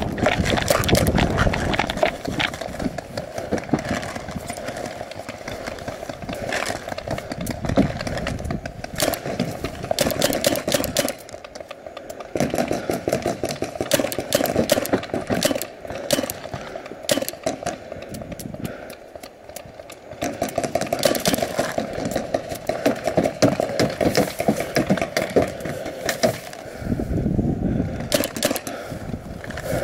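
Paintball match on the field: paintball markers firing in clusters of sharp pops and clicks, over rustling and handling noise from the player's gear.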